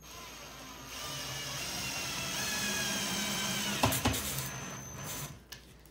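Cordless drill driving a wood screw into a pre-drilled pine board: the motor whines for about five seconds, its pitch sagging a little as the screw bites, with a couple of sharp clicks about four seconds in before it stops.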